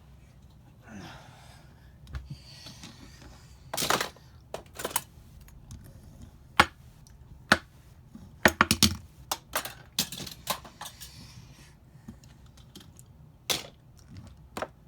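Small hard toy cars clicking and clattering as they are handled and knocked together, in irregular sharp knocks with a quick cluster about eight to eleven seconds in.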